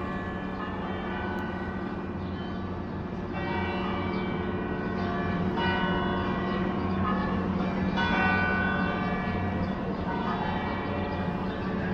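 San Fernando Cathedral's church bells ringing, their tones overlapping and hanging on, with fresh strikes every two to three seconds.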